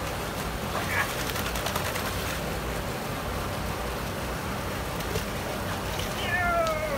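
Steady rush of flowing canal water, with dogs wading and splashing in the shallows. Near the end comes a single falling cry, as a long-haired dog is lowered into the water.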